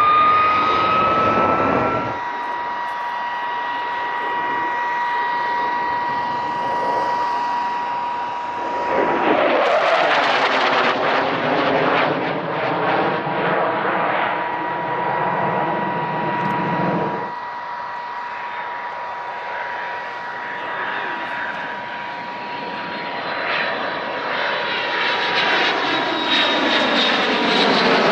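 Saab 37 Viggen's Volvo RM8 afterburning turbofan in flight: jet noise with a high whine that rises at first and then holds steady. It grows loud about ten seconds in with sweeping changes in pitch as the jet passes, eases off, and builds again near the end.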